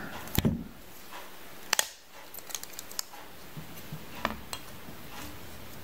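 Hard plastic clicking and tapping from a runner of unassembled Beyblade parts being handled and turned over: a few scattered sharp clicks, the clearest just under two seconds in.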